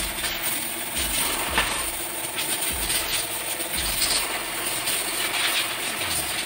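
A steady mechanical hum like a vehicle engine running, with a faint whine rising in pitch about a second and a half in.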